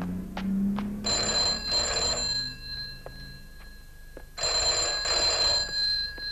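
An old bell telephone ringing with a double ring, twice: ring-ring, a pause, ring-ring. A car engine fades out in the first second.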